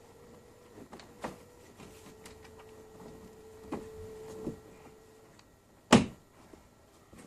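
Handling clicks and knocks from work on the split-system air conditioner's indoor unit, with one sharp, loud click about six seconds in, over a faint steady hum that runs for a few seconds and stops.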